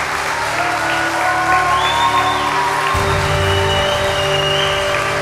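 Studio band music playing over audience applause and clapping, with a bass line coming in about three seconds in.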